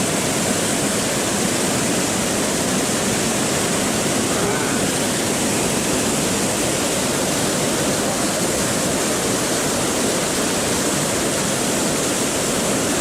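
Water rushing through the gates of a sluice dam, a steady loud rush of falling water.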